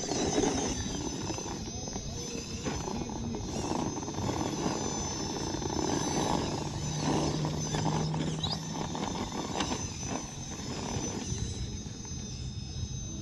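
Electric RC scale rock crawler's motor and gears whining as it crawls up a rock ledge, with a steady high-pitched tone in the background.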